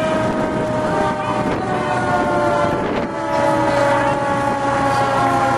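Fire engine air horns sounding together in one long, steady chord of several tones that slowly sags in pitch.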